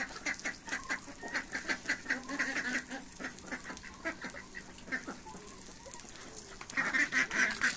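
Ducks quacking in quick runs of short calls, which thin out midway and grow louder again near the end.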